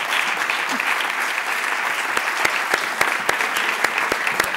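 Audience applauding: steady clapping from a hall full of people, with some louder individual claps standing out.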